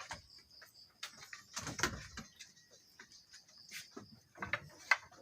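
Young Anglo-Nubian goats moving about their pen: irregular knocks and clatters, the sharpest near the end, over a faint steady high-pitched hiss that comes and goes.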